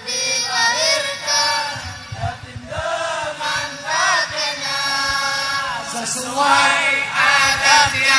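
Indonesian sholawat, a devotional song in praise of the Prophet, sung in long wavering melismatic phrases over musical backing.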